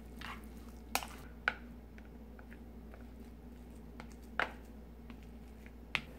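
Plastic rice paddle stirring and pressing sticky sweet rice with nuts: soft squishing, with four sharp taps of the paddle against the dish.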